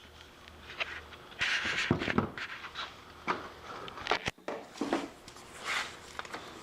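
Rummaging through workshop storage for a paint spray gun: scattered knocks, clicks and rustling as things are moved about, with a sharp knock a little past the middle.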